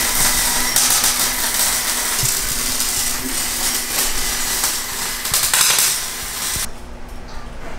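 Electric arc welder crackling and hissing steadily while a muffler is welded onto a car's exhaust pipe, cutting off abruptly near the end.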